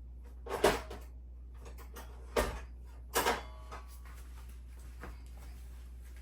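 Three sharp knocks of metal cookware being handled on the stove, about two seconds apart; the last one rings briefly like struck metal. A steady low hum lies under them.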